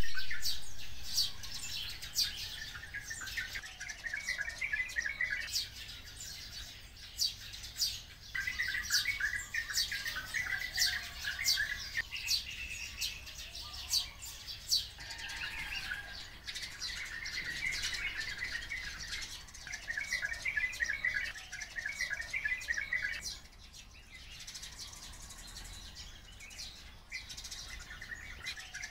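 Oriental white-eyes and sparrows calling together: a busy stream of short, sharp, high chirps over repeated bouts of fast trilling, each a second or two long. The chirping thins out for a few seconds past the two-thirds mark.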